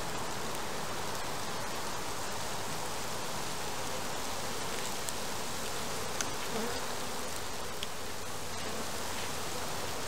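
Steady buzzing of a mass of honeybees over an opened hive, with a few faint light ticks partway through.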